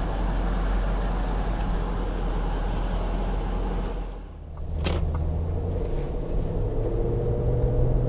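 Range Rover's 4.4 TDV8 diesel V8 running, heard from inside the cabin. About four seconds in the sound drops briefly and changes to a steadier hum as the car moves off. There is one sharp click about a second after that.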